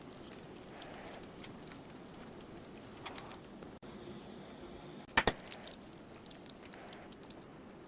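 Small clicks and knocks of household objects being handled, with one sharp double click about five seconds in.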